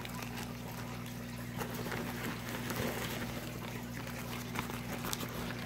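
Faint rustling and light sloshing as plastic bags of water holding fish are handled, over a steady low hum and hiss.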